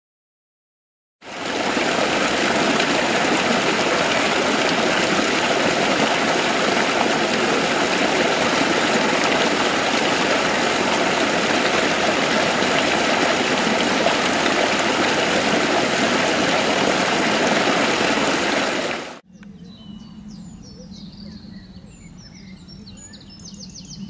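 Steady, loud rushing of water, like a stream or weir, starting about a second in and cutting off abruptly near the end. After the cut, small birds chirp faintly over a quiet outdoor background.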